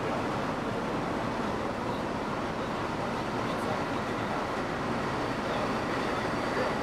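Steady dockside machinery noise: a continuous even rumble and hiss with no distinct knocks or changes.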